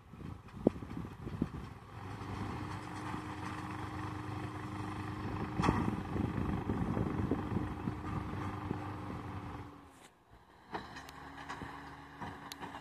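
Deutz-Fahr tractor pulling a McHale round baler, heard from a distance: engine and baler running with a steady hum. The hum drops out briefly about ten seconds in and comes back.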